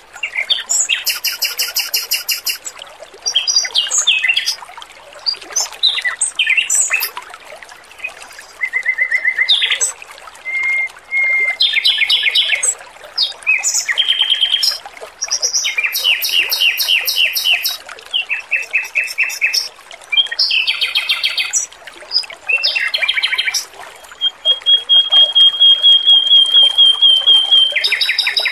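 Male Pekin robin (red-billed leiothrix) singing: a run of quick, varied whistled phrases and rapid trills with short gaps, and near the end one long even trill of fast repeated notes. A faint trickle of water runs underneath.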